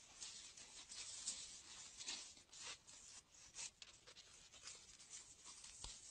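Near silence with faint, uneven scratchy rustling and crackling.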